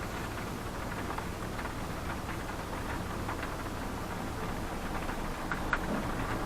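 Heavy rain hitting a moving car, heard from inside the cabin, over a steady low drone of engine and road noise, with scattered taps of drops.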